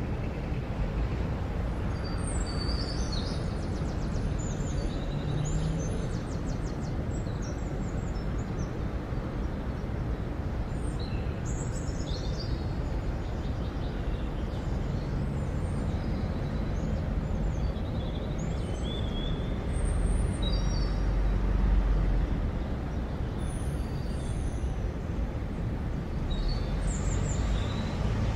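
Town street ambience: a steady low rumble of traffic with birds chirping now and then. The rumble swells briefly about twenty seconds in.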